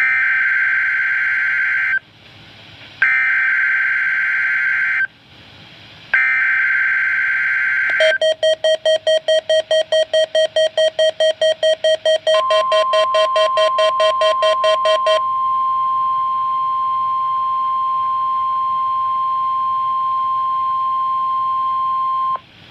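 NOAA Weather Radio required weekly test tones. First come three two-second bursts of SAME digital header data, a second apart. Then a beep pulses about five times a second and quickens partway through, and the steady 1050 Hz warning alarm tone follows, held for about ten seconds before it cuts off suddenly.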